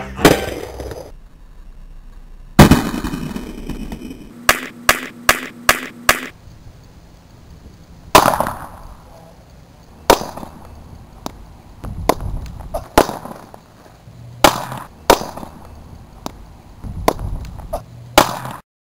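Homemade airsoft grenades going off: a string of sharp bangs and pops at irregular spacing, the loudest about two and a half seconds in, with a quick run of five cracks a little later.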